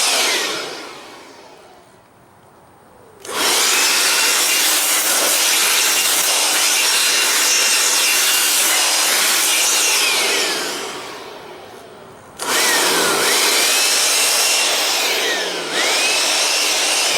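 Air blower blowing dust out of a desktop PC case in three long bursts of rushing air. A whine rises as each burst starts and slides down in pitch as each one dies away.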